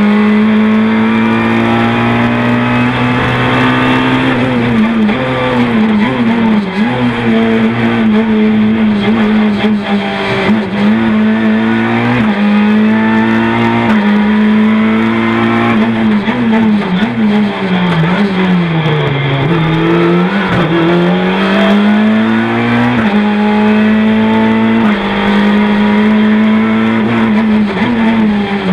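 Renault Clio 3 F2000 rally car's 2-litre four-cylinder engine heard from the cockpit, pulling hard on a tarmac stage. The revs keep climbing and falling through gear changes, with a deep drop and climb back about two-thirds of the way through as the car brakes, downshifts and accelerates out of a bend.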